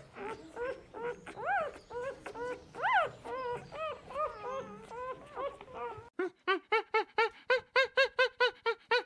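An animal giving short, high-pitched whining cries, many in quick succession. About six seconds in the background hiss drops away and a fast, evenly spaced run of cries begins, about three a second.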